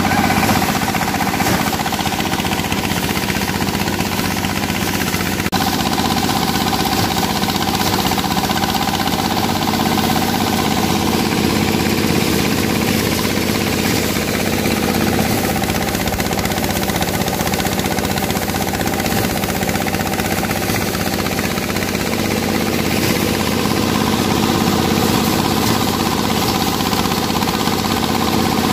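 Engine-driven rice thresher running steadily as bundles of dried rice stalks are fed into its drum, with threshed straw blowing out of the chute.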